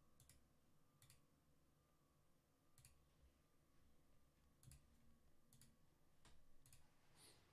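Near silence: faint room tone broken by a few faint, irregularly spaced clicks.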